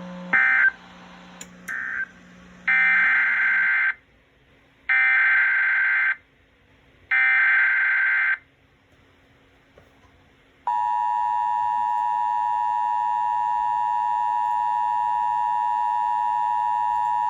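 Emergency Alert System signalling: two short screeching data bursts, then three one-second bursts of SAME header data, and from about ten and a half seconds in the steady two-tone EAS attention signal. Together these mark the start of a relayed weather warning, here a severe thunderstorm warning.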